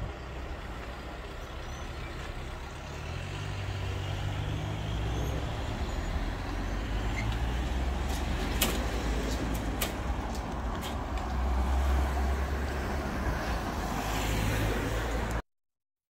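Road traffic moving off over a level crossing once the barriers are up: car engines running low and pulling away, getting louder toward the middle, with a few sharp clacks as wheels go over the crossing. The sound cuts off suddenly just before the end.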